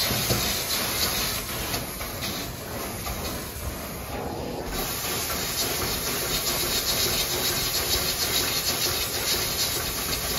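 Carpet-cleaning extraction wand working wet carpet: a steady rushing hiss of suction and rinse spray as it is drawn over the pile. The upper hiss brightens about four to five seconds in.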